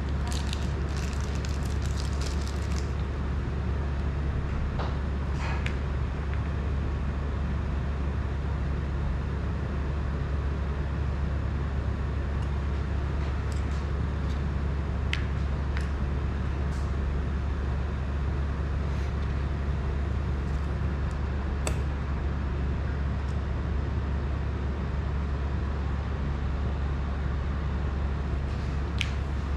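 A steady low hum with occasional faint clicks and small taps as parts of a drone are handled.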